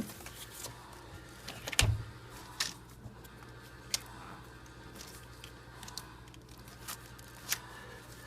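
Scattered light clicks and knocks of a spark plug wire and its rubber boot being handled and pushed into place, with one louder knock about two seconds in. A low steady hum sits underneath.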